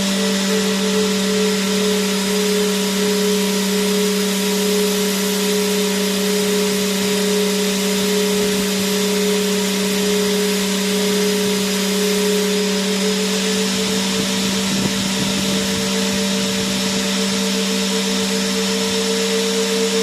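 Vacuum cleaner motor running steadily: a constant hum with a higher whining tone over a broad rushing hiss. The whine creeps up slightly in pitch in the last few seconds.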